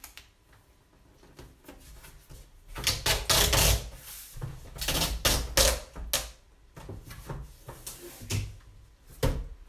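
Packing tape being pulled off its roll in several rasping strips and pressed onto a cardboard box to seal it. It starts a few seconds in, with the longest pulls coming first.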